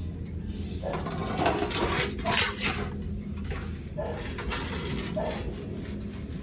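Metal hand tools clinking and rattling, with a run of sharp clicks and knocks through the middle.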